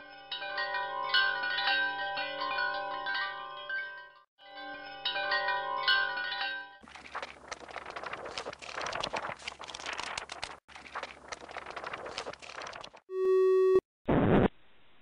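Chilean street barrel organ (organillo) playing a tune in steady held pipe notes, with a short break about four seconds in; it stops about seven seconds in. Several seconds of noisy clattering follow, then a short electronic beep and a loud burst of noise near the end.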